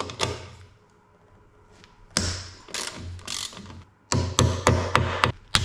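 Hand ratchet wrench being worked in short strokes, its pawl clicking, with a quick run of strokes near the end and a few sharp metallic clicks.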